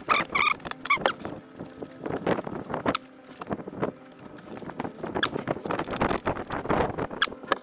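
Light clicks, clinks and knocks of hand tools and engine parts being handled at an open cylinder head, with a brief squeak near the start.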